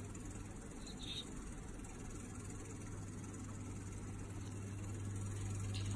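Steady low electrical hum with a faint high hiss from running electric kitchen equipment: the switched-on countertop heater. Two faint brief ticks come about a second in and near the end.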